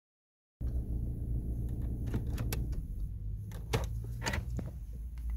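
Sharp plastic-and-metal clicks from the Audi A4 B8's key fob being worked and pulled out of its dashboard ignition slot. A handful of separate clicks sit over a steady low rumble, and the loudest come a little past the middle.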